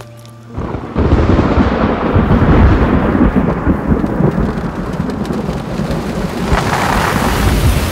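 A held music chord cut off about half a second in by a loud, steady downpour of heavy rain with a deep thunder rumble, which swells about a second in.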